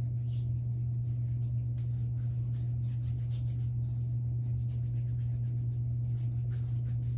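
Hands patting and rubbing aftershave onto freshly shaved skin, soft scattered skin-on-skin rubs, over a steady low hum that is the loudest thing throughout.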